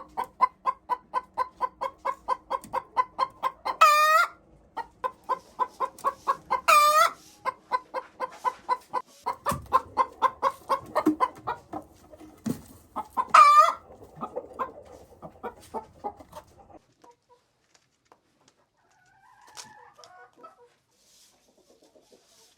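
A hen cackling: quick clucks, about three or four a second, broken three times by a loud drawn-out squawk. The last squawk comes about thirteen seconds in, and the cackling dies away a few seconds after that, leaving a few faint clucks.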